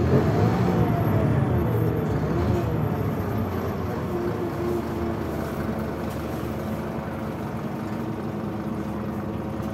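Scania DC9 five-cylinder diesel bus engine running under way, with a brief rise in pitch about half a second in. The engine note then fades into a steadier, gradually quieter drone of engine and road noise.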